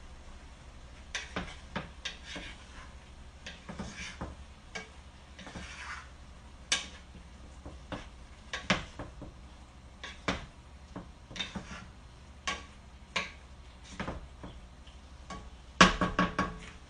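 A cooking utensil scraping and clinking against a frying pan as mixed vegetables are stirred, in irregular knocks and scrapes. A quick run of clatter near the end is the loudest.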